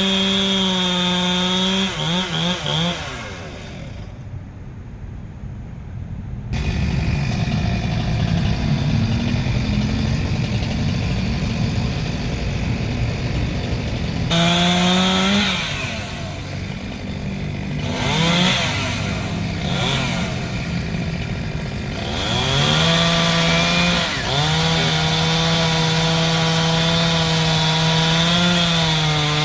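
Two-stroke chainsaw running at high revs, dropping off for a few seconds, then revved up and down and held at full throttle from about two-thirds of the way through, cutting into wood.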